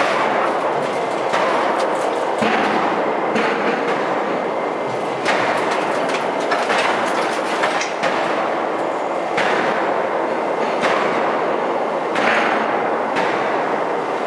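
Open-die forging machinery working a hot nickel-alloy billet: a loud, continuous clatter with irregular heavy metallic knocks about once every second or so.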